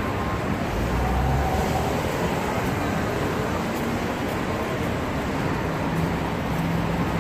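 Busy street traffic noise: a steady hum of passing cars and a bus, with a deeper low rumble about a second in.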